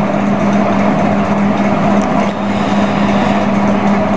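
A steady machine-like hum: a constant low tone over an even hiss, with no breaks or changes.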